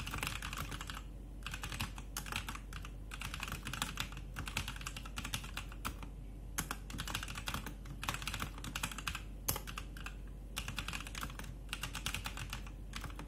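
Typing on a Rexus Legionaire MX3.1 mechanical keyboard with brown switches: quick runs of keystroke clicks broken by short pauses.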